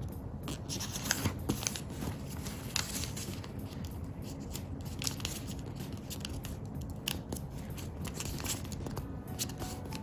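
Square of origami paper being folded and creased by hand: irregular soft rustles and small sharp crackles as the edges are folded in and pressed flat with the fingers.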